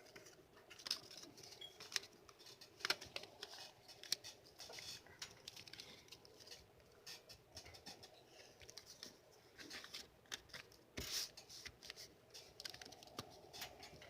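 Sheet of origami paper being folded and flattened by hand: faint, irregular crinkles, scrapes and small taps of the paper, with a few sharper crackles about three, four and eleven seconds in.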